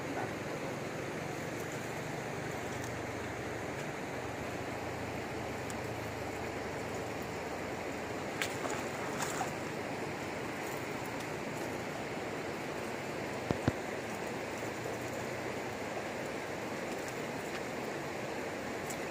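Steady rush of a fast-flowing river current, with a few faint clicks about halfway through.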